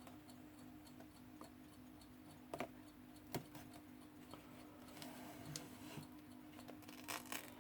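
Faint, scattered clicks and light rustling of adhesive tape being handled and pressed around an alarm clock's glass, over a steady low hum.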